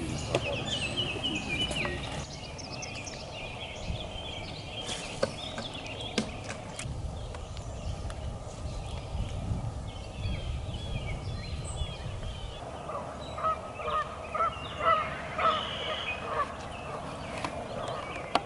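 Birds calling: smaller birds chirp near the start, and a quick run of short repeated calls comes in the second half.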